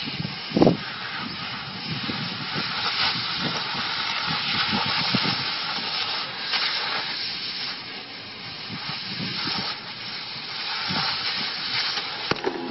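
Cutting torch hissing steadily as it cuts through a steel railway rail. There is a brief thud about half a second in.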